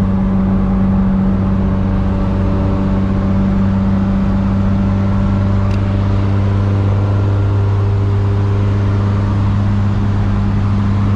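Turbocharged KA24DE 2.4-litre four-cylinder in a Nissan 240SX running at a steady highway cruise, a constant low drone.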